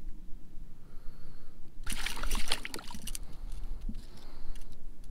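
Water splashing and trickling beside a kayak for about a second, a little after the start, over a low steady rumble.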